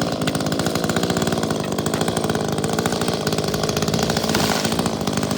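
Small two-stroke chainsaw engine, a ported Echo CS-310, starting suddenly and then running steadily.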